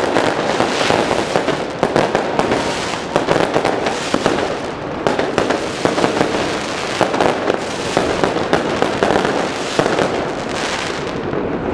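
Fireworks going off in a dense, continuous barrage: many overlapping bangs and crackling pops with no pause between them.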